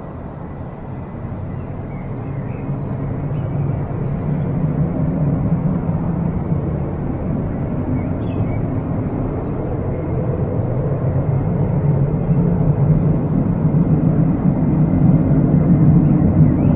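Tupolev Tu-154M airliner's three Soloviev D-30KU-154 turbofans, a low jet rumble growing steadily louder as the aircraft comes closer.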